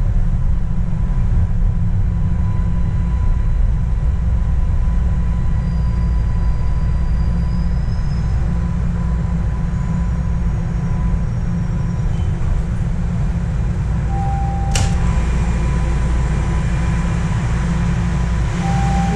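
TTC Line 1 Toronto Rocket subway train running through the tunnel, heard from inside the car: a steady low rumble of wheels and traction motors, with one sharp click about fifteen seconds in.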